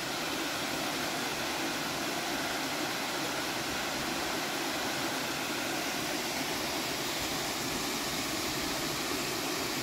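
Steady rushing of a waterfall, an even noise of falling water with no change in level.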